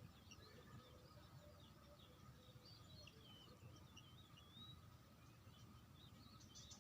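Faint chirping of small birds: many short, high calls and little rising glides overlapping, over a steady low background noise.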